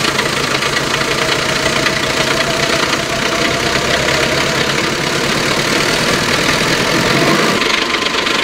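GAZ-3308 truck's turbodiesel engine idling steadily, just started after its injectors were serviced and reinstalled and the fuel system hand-primed.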